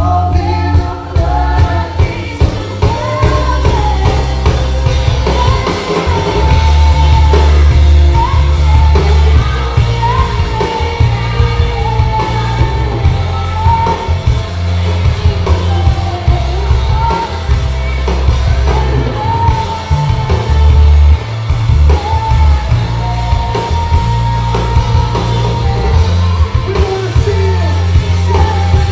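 Worship band music: a lead singer's melody over heavy bass notes and band accompaniment.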